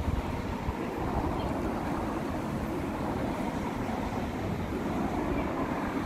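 Steady rushing noise with a fluttering low rumble: wind buffeting the phone's microphone.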